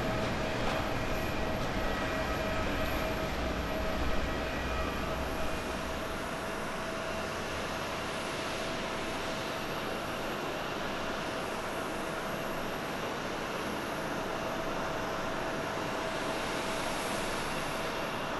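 Jet airliner engine noise. A deep rumble comes from a Boeing 737-800's CFM56 engines climbing out after takeoff, easing off after about five seconds. Steadier, slightly quieter jet noise follows as an Airbus A350-900 rolls along the runway after landing.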